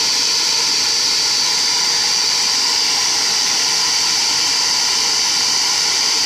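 Electric air blower running steadily, a continuous rushing hiss with a constant high whine.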